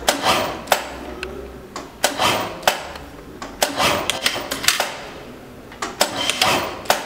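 Juki DDL-8700 single-needle lockstitch industrial sewing machine stitching in about four short runs of rapid needle ticking, with sharp clicks between the runs.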